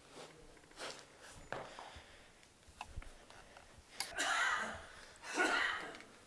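Soft footsteps of sneakers on a bare concrete floor, then two louder, short hissing sounds, about four seconds in and again a second later.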